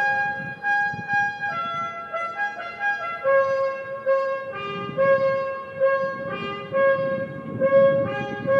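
Brass music in a slow melody of long held notes, with several instruments sounding together: the music played while the flags are lowered at a colors ceremony.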